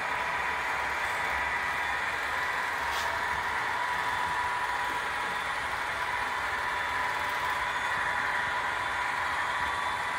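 A long model freight train of 50 weighted cars running on the layout behind model SD40-2 and SD45 diesel locomotives. The sound is a steady running noise with a faint steady tone in it.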